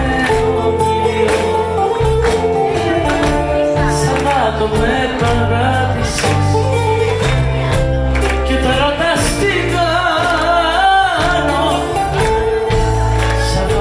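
Live Greek popular music from a band of bouzouki, electric guitars, drums and keyboards, with a woman singing and the audience clapping along.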